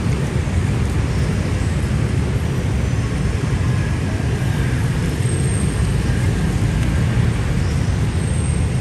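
Steady low-pitched noise of dense road traffic, with no single vehicle standing out.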